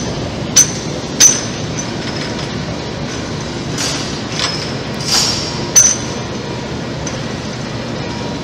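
Steady machine-shop running noise around a large Hypro vertical boring and turning mill, with a few sharp metallic clinks that ring high: two in the first second or so, another near six seconds, and short hissing swells between them.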